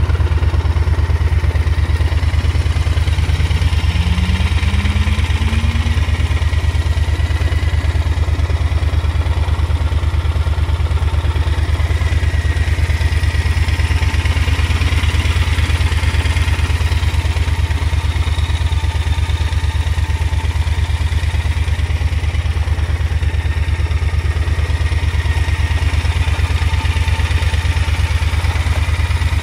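Triumph Thunderbird 1600's parallel-twin engine idling steadily.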